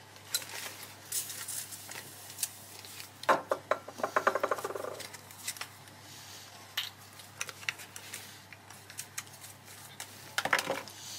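Small clicks, taps and rustles of makeup-removal items being handled close by, with a denser run of clattering about three to five seconds in and another near the end.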